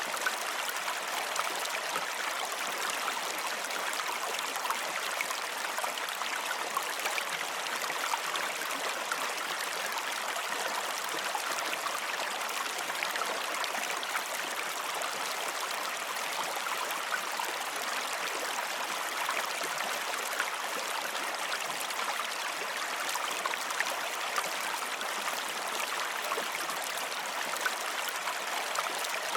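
Steady flowing water, like a stream running over stones: an even rush full of fine splashing ticks that never changes.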